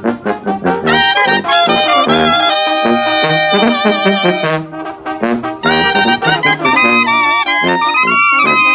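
A Mexican banda brass band playing: trumpets and trombones over a bass line, with drum strokes. The full sound thins out briefly about halfway through, then the whole band comes back in.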